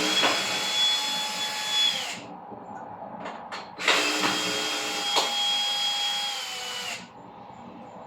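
Cordless drill running in two bursts, one about two seconds long and one about three, its motor whine dropping in pitch as each burst winds down. It is being used to take a door closer off a door.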